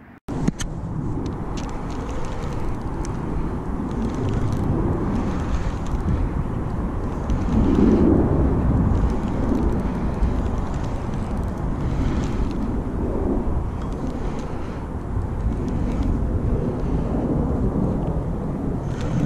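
Wind buffeting an outdoor microphone: a steady low rumble that swells about eight seconds in, with a few faint clicks.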